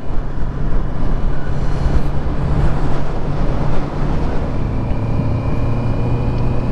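Honda CB650F inline-four engine running at a steady cruise on the move, with a constant rush of wind and road noise over it.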